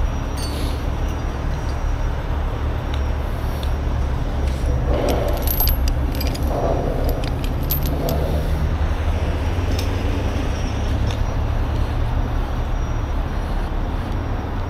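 Recovery chains and hooks rattling and clinking, loudest in a cluster about five to eight seconds in, over the steady low rumble of a heavy diesel truck engine running.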